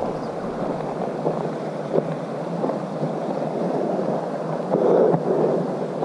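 Wind buffeting the microphone of a hand-carried camera on a walk, a steady rumbling noise that swells about five seconds in, with a brief tick near two seconds.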